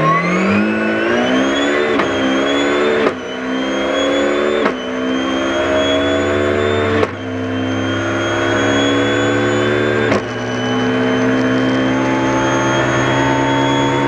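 BMW rally car engine heard from inside the cabin, accelerating hard out of a slow corner and pulling up through the gears. A sharp crack and a brief dip at each of four upshifts, about 3, 5, 7 and 10 seconds in, and the revs climb steadily between them.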